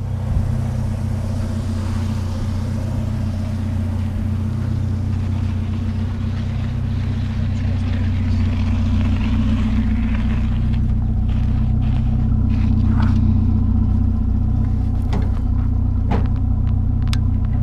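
Vehicle engine running steadily at an even speed. A few short clicks and knocks come in the last few seconds.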